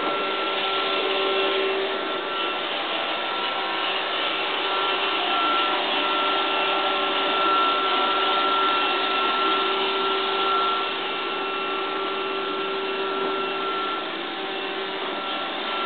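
Robot vacuum cleaner running: a steady whirring hum with a few steady tones through it, swelling and easing slightly in loudness.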